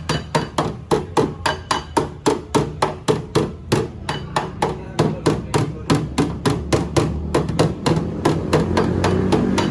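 Hammer striking at a steady, even rhythm, about four blows a second, as in panel beating during car body repair, over a low steady hum.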